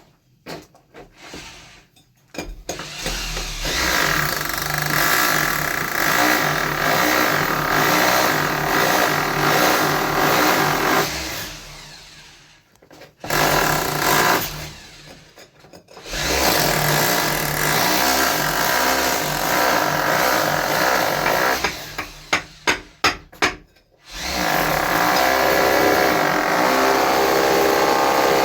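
Power drill running in long runs of several seconds, stopping briefly between them, with a quick string of short trigger blips before the last run.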